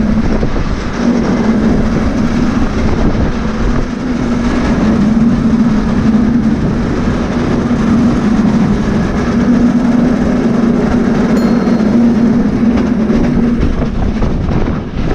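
A San Francisco California Street cable car rolling along its track, with rumble and rattle from the car and a steady low hum that stops near the end.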